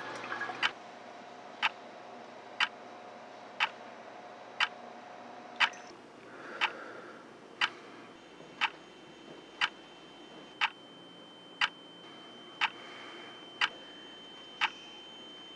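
Wall clock ticking, one sharp tick every second, over a faint steady background. A thin steady tone fades out about a third of the way in, and a higher thin tone comes in about halfway and holds.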